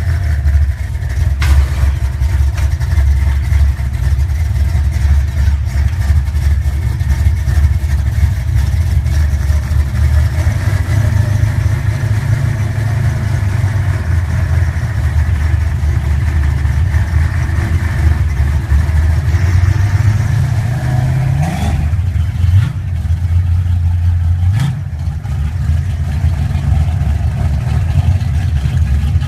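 Modified classic Ford Mustang engine idling loudly, with a few quick rising revs about three quarters of the way through.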